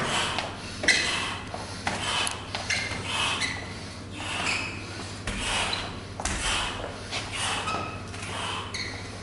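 Light open-hand and fist strikes landing on a standing partner's body and clothing: irregular dull hits about once a second, aimed at the muscles and not hitting hard, with breathing sounds between them.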